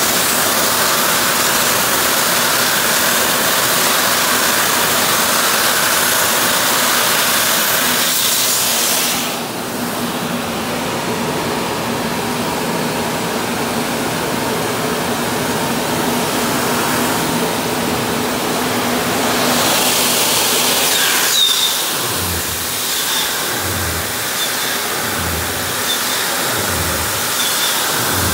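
Muffin-pan cleaning machine running: a loud, steady rushing noise over a motor hum. The high hiss thins out for several seconds partway through, and near the end a low thump repeats about every second and a half.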